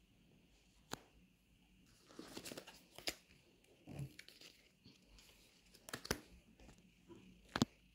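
Faint handling noise: scattered soft clicks and knocks, a stretch of rustling about two seconds in, and a low thud near the middle, as trading cards and the camera are picked up and moved about on a fabric surface.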